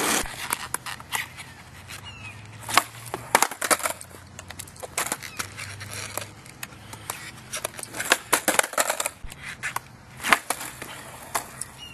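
Irregular clicks, taps and scuffs of a skateboard being handled and set down on an asphalt street, scattered through the stretch with no rolling sound.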